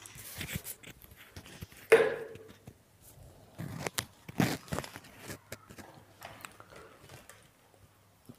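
Handling noise: rustling with a few sharp knocks and clicks, the loudest about two seconds in, then two more near the middle.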